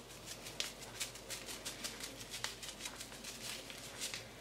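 Faint rustling of a plastic seasoning sachet and a quick run of soft ticks as chicken bouillon powder is shaken out over cubed raw meat.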